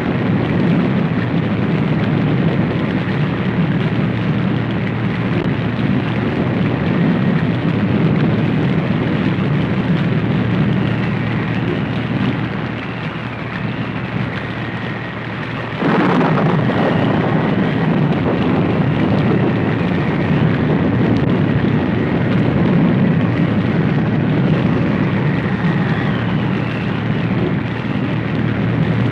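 Sound-effect mix of a stormy night: steady rain hiss over a deep continuous rumble. The rumble eases slightly, then a sudden loud explosion blast hits about midway and gives way to heavy, sustained rumbling.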